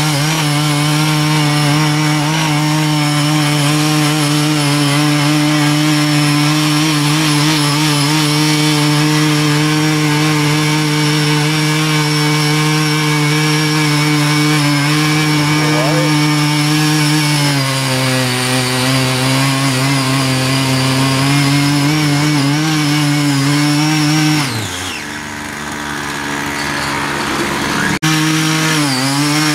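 Small engine of a CY50 mini power tiller running fast and steady as its rotary tilling blades churn through weedy, rain-moistened soil. Its pitch drops slightly about two-thirds of the way in, then falls away sharply near the end before it is running fast again.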